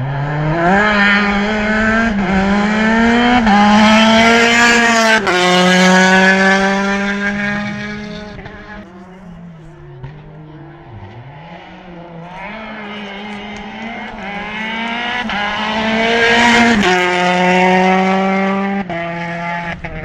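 Rally car engine at full throttle, revs climbing in steps as it changes gear, loud twice: first close by, then fading away and rising again before dropping off near the end.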